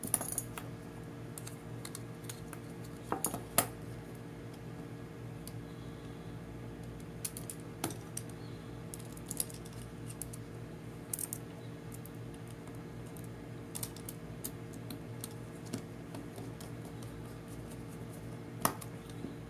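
A small screwdriver, screws and plastic landing-gear legs clicking and tapping as the legs are screwed onto metal retract units. The clicks are scattered and sharp, the loudest about three and a half seconds in and near the end, over a steady low hum.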